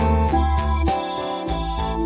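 Instrumental background music with a melody of short changing notes over a bass line.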